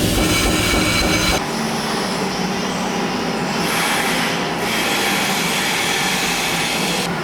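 Metal grinder working steel, a steady rasping whine that changes abruptly several times as the sound jumps between shots.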